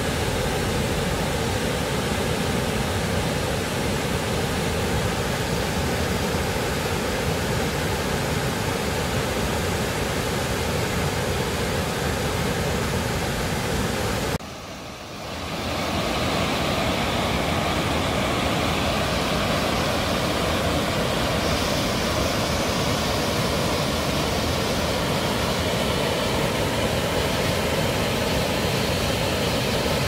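Mountain waterfall pouring over granite ledges into a rock pool: a steady, loud rush of falling water. It drops out for about a second halfway through, then resumes.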